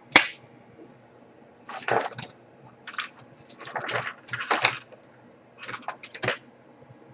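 Hands handling small laptop parts and wires: one sharp click about a quarter second in, then several short bursts of crackly rustling and clicking.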